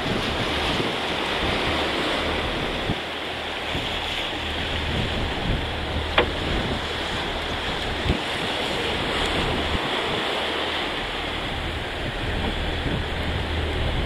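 Wind buffeting the microphone over a choppy sea, a steady rushing wash with a low rumble underneath. Two brief knocks, about six and eight seconds in.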